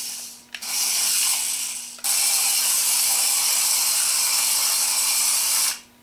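Adventure Force Nano Racer Jeep Gladiator's tiny electric motor and gears whirring at a high pitch as the palm-sized RC truck drives and spins. There is a short run, a brief let-off, then a longer steady run from about two seconds in that cuts off suddenly near the end.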